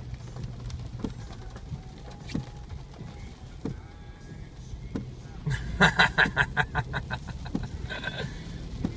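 Low wind rumble on the microphone with occasional light knocks, and about five and a half seconds in a loud, rapid pulsing call or cry lasting about a second and a half, followed by a shorter one.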